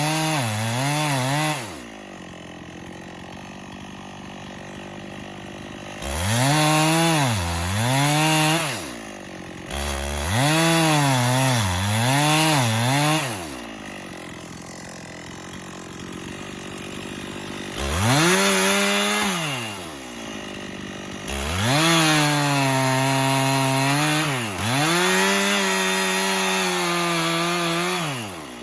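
Chainsaw cutting the face notch (wedge) in a standing tree. It runs at full throttle in five cuts, the engine pitch dipping and recovering as the chain bites into the wood, and drops back to idle between cuts.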